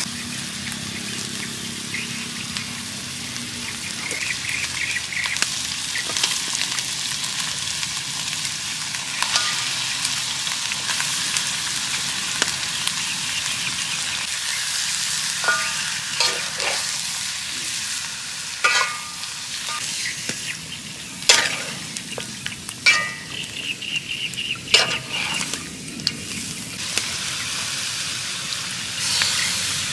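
Curry paste and frog meat sizzling in a metal wok over a wood fire, with sharp clinks and scrapes of a metal spatula against the pan through the second half.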